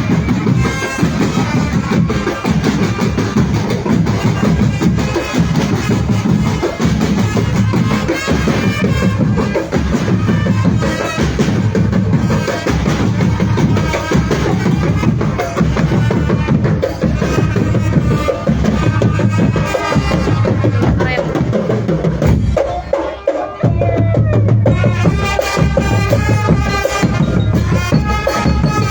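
Indonesian drumband, a marching percussion band, playing: drums beating steadily with a melody over them. The band drops out briefly about 23 seconds in, then comes back in.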